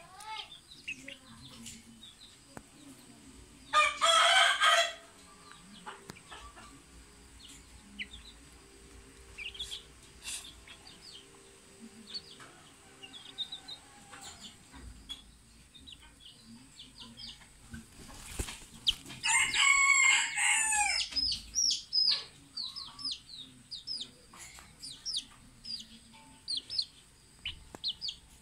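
Junglefowl rooster crowing twice, loud and about a second each, about 4 seconds in and again near 20 seconds in, with frequent short high peeps from the chickens in between.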